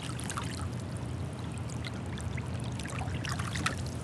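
Small splashes and trickling drips of river water as a hand releases a large smallmouth bass beside a kayak, over a steady low rush. The splashing picks up a little past three seconds in.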